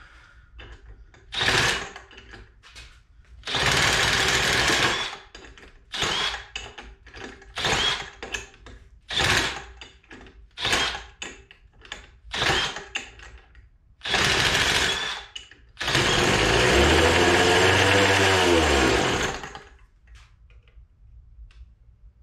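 Small Poulan Pro leaf blower two-stroke engine running on nitromethane RC car fuel, revving in a series of short bursts with quieter gaps between. Near the end it gives one longer rev of about three and a half seconds whose pitch rises and then falls, and then it goes quiet.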